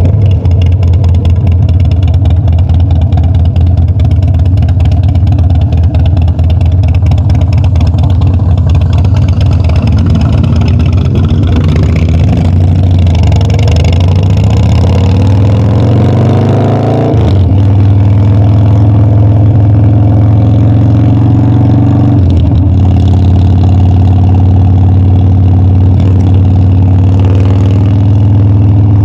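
Harley-Davidson Dyna's V-twin engine on the road: running steadily, then pulling with a rising pitch from about ten seconds in, dropping sharply as it shifts up at about seventeen seconds, stepping again at about twenty-two seconds, then cruising steadily.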